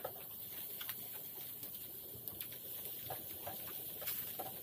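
Pork belly crackling and popping over a charcoal fire, with short irregular pops and clicks and the metal tongs tapping the wire grill as the pieces are turned.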